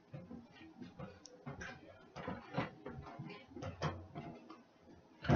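Light, irregular clicks and taps of kitchen handling as chicken wings go into an air fryer, with a louder knock at the very end.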